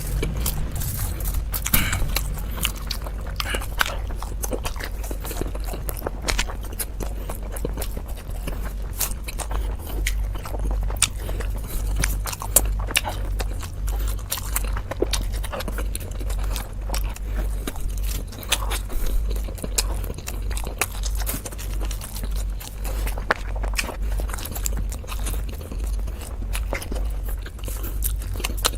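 Close-miked chewing of momo dumplings: wet mouth clicks and smacks, settling into a steady chewing rhythm about a third of the way in.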